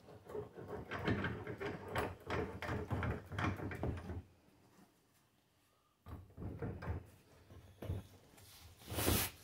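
Steel bench vise being opened and closed by its sliding handle, with metal clatter and knocks and the rubber of a small mower tire bumping the jaws as the wheel is taken out, flipped and clamped again for breaking the bead on its other side. A quiet gap of about two seconds falls in the middle, and a loud scraping sound comes near the end.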